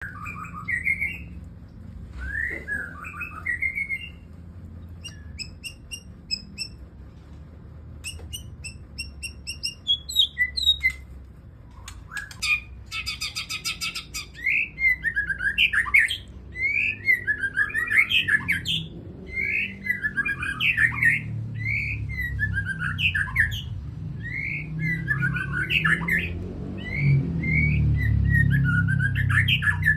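White-rumped shama singing a loud, varied song of whistled phrases, sharp chips and rapid repeated notes, sparse at first and then near-continuous from about halfway in.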